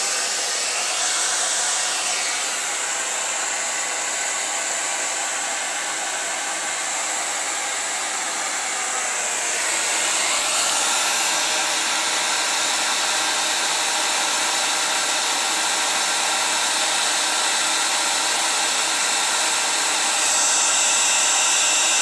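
Electric hair dryer running, a steady rush of air over a motor hum. It gets louder about ten seconds in and again near the end.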